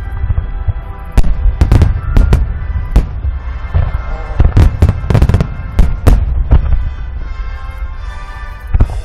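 Aerial firework shells bursting in quick succession: a rapid series of sharp booms over a continuous low rumble. The booms are densest through the first two-thirds and thin out near the end.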